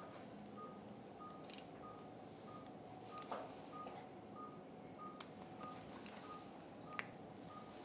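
Operating-room patient monitor giving a short high pulse beep at an even, quick pace, tracking the anaesthetised dog's heartbeat. Four sharp metallic clicks from surgical instruments (needle holder and forceps) come during suturing in the second half.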